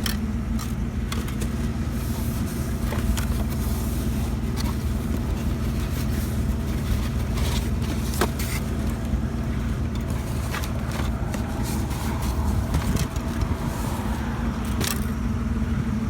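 A vehicle engine idling steadily, with scattered clicks, knocks and scrapes of items being handled.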